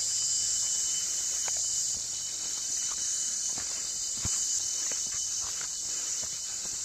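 Steady, high-pitched insect chorus with a thin whining tone under it, and scattered footsteps and snaps of plants as people climb through undergrowth.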